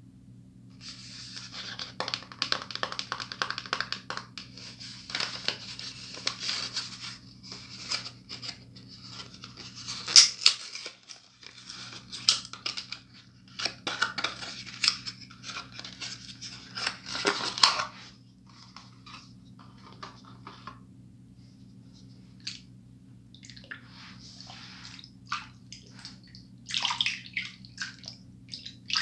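Cardboard box of Irish Spring Moisture Blast bar soap being torn open by hand: crackling, ripping and crinkling of the paperboard for most of the first eighteen seconds. Near the end, water splashes as the bar is wetted in the hands under the running tap. A steady low hum runs underneath.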